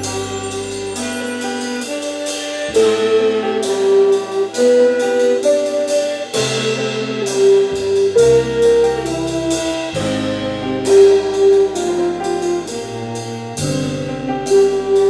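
Live jazz ensemble playing: saxophones carry held melody notes over drum kit with cymbals, electric guitars, keyboards and bass. The band gets louder about three seconds in.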